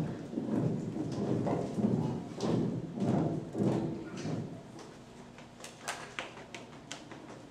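Thumps and scuffling of children's feet moving on a stage, heavy for about the first four seconds, then dropping to scattered light clicks and taps.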